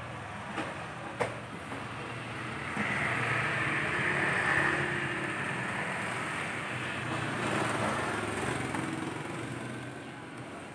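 Engine noise of a passing motor vehicle, swelling over a few seconds and then fading away. A couple of sharp laptop key or touchpad clicks come about half a second and a second in.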